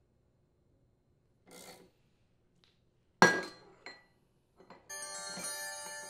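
Wrench turning a flywheel puller's centre bolt on a Honda small engine, then one sharp metallic crack about halfway through as the flywheel breaks loose from the crankshaft taper. Near the end a bell-like chime starts and rings on, slowly fading.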